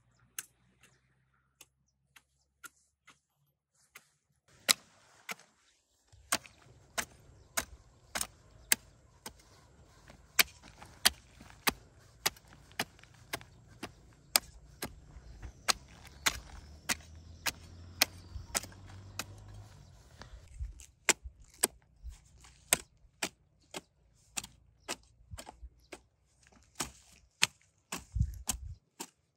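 Repeated sharp strikes of a hand tool, nearly two a second, over a low rumble. A few scattered knocks come first, and the steady striking begins about five seconds in.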